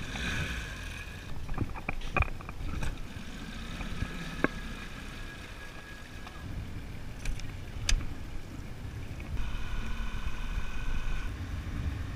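Small tiller-steered outboard motor running as the skiff motors along, a steady low hum with a faint whine that comes and goes, and a few short knocks.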